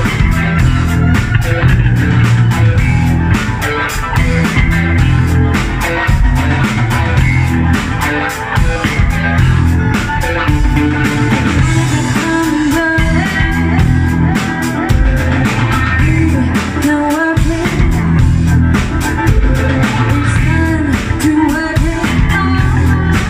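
Live band playing with a steady drum beat, electric bass guitar, saxophone and keyboards, and a woman singing into the microphone.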